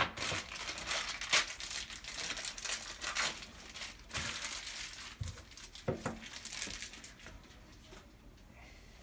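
Plastic packaging crinkling and rustling as small faucet adapter fittings are handled and sorted, with a few light knocks; it dies down about seven seconds in.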